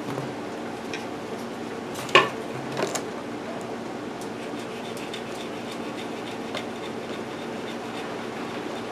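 A Scotch-Brite pad strip rubbing and scraping inside the brass brush holder of a miter saw motor, with small handling ticks. There is a sharp knock about two seconds in and a lighter one just after, over a steady low hum.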